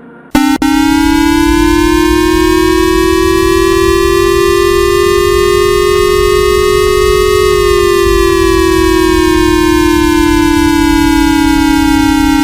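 Civil-defense-style warning siren, synthesized for a mock emergency alert broadcast: a loud, steady wailing tone that starts abruptly about a third of a second in, rises slowly in pitch for about seven seconds, then begins to fall.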